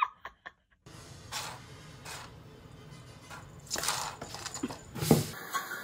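A few short scuffling and thumping bursts from a cat leaping and playing on a wooden floor, over a low steady hum.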